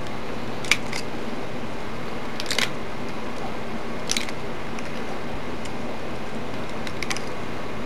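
Needle-nose pliers working stranded copper wire, a few short, sharp clicks spread out, one of them doubled, as the wire roots are trimmed to a taper. A steady hiss runs underneath.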